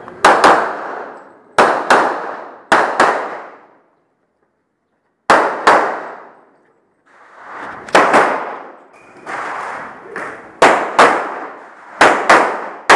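Pistol shots fired in quick pairs (double taps) as a shooter works through a stage, about seven pairs in all with one short pause partway through. Each shot is sharp and followed by a ringing echo.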